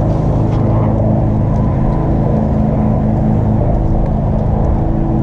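Tractor engine running steadily under load while mowing a nearby field, a constant low drone whose pitch holds.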